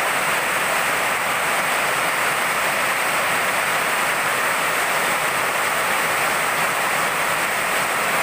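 Heavy tropical rain pouring steadily, splashing on wet, puddled ground.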